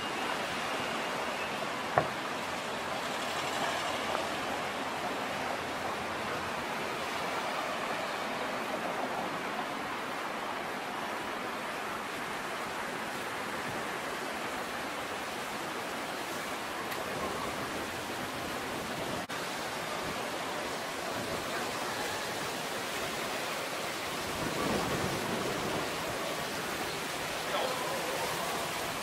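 Steady outdoor street ambience on a quiet city avenue: an even hiss of distant traffic and air. One sharp click comes about two seconds in, and a brief low swell about twenty-five seconds in.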